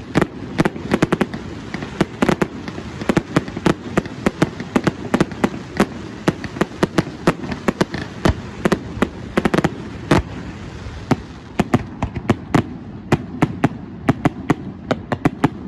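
Aerial fireworks display: a dense, irregular string of sharp bangs from shells bursting, several a second, over a continuous background of lesser bangs and crackle.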